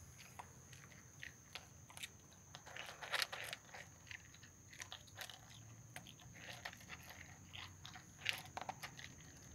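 Large dog eating dry kibble from a plastic bowl, with faint, irregular crunches as he chews; the crunching is loudest about three seconds in and again near the end.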